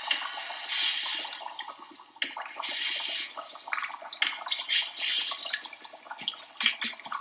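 Cartoon soundtrack: steady rain hissing for about two seconds, then a string of short splashy hissing bursts and clicks.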